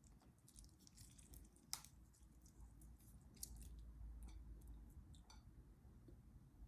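Very faint wet squishing and scattered small clicks of a lemon being handled and squeezed by hand, with one sharper click near the two-second mark.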